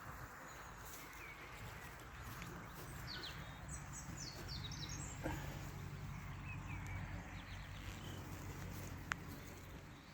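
Steady low hum of many honeybees flying around the hives, with small birds chirping several times in the first half and a single sharp click about nine seconds in.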